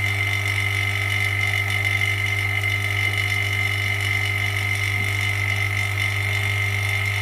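Vacuum pump of an LCD separator machine running steadily, holding the screen down on the hot plate: a constant hum with a thin high whine over it.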